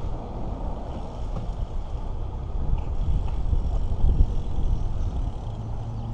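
Steady low rumble of wind buffeting the microphone and road noise while riding a BMX bike along a street.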